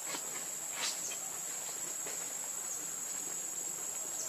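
Insects calling outdoors: a steady, high-pitched drone that runs without a break, with a few faint small sounds over it.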